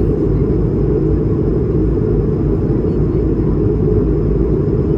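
Steady low rumble of an Airbus A220-300 airliner heard from inside the passenger cabin: its Pratt & Whitney PW1500G geared turbofan engines and the airflow over the fuselage, even and unbroken.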